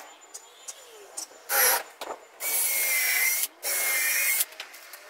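Cordless drill working into a solid-wood board: a short burst, then two runs of about a second each with a steady motor whine, separated by a brief pause.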